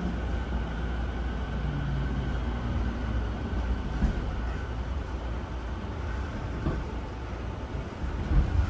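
Interior running sound of a JR E217-series EMU motor car: a steady low rumble of wheels on rails with faint motor tones. Near the end come a few louder knocks of the wheels over rail joints or points.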